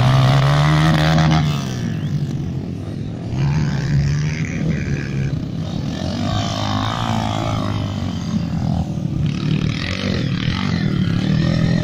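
Small-displacement dirt bike engines revving under heavy load as the bikes churn through deep mud. Several bikes pass close one after another, each engine note rising and then falling away.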